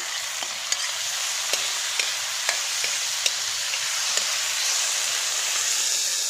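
Tomatoes frying in hot oil with sautéed garlic and onion, a steady sizzle. A utensil clicks against the pan now and then as the mixture is stirred.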